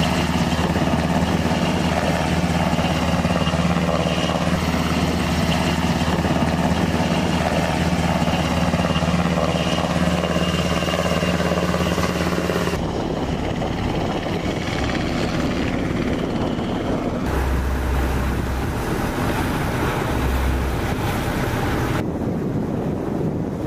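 Navy Seahawk helicopter hovering low over the sea, rotors and turbines running steadily. About 13 seconds in the sound changes to a more distant helicopter with wind and water. Near the end an inflatable rescue boat's outboard motor runs over choppy water.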